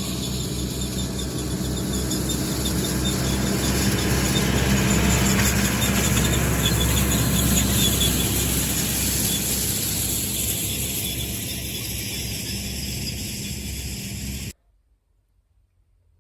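Tractor engine running steadily under load, with the rattle of haying machinery and a faint thin squeal; it swells to its loudest about midway, then cuts off abruptly just before the end.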